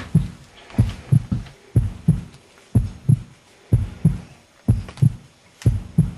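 Heartbeat sound effect: paired low thumps, lub-dub, repeating steadily about once a second.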